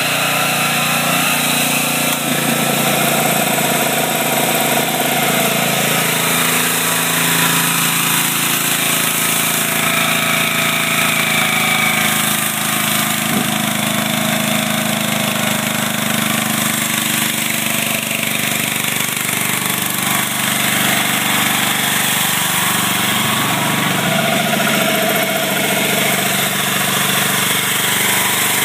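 Homemade engine-driven generator running under heavy load from an air conditioner, an air compressor and two space heaters, the engine note wavering as it labours near its maximum capacity.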